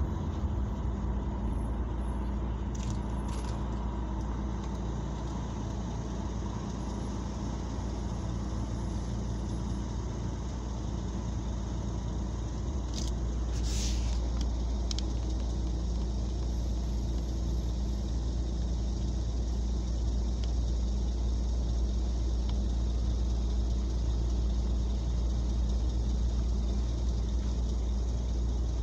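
Car interior sound in slow city traffic: a steady low engine and road rumble, a little louder in the second half, with a few brief clicks about 3 and 14 seconds in.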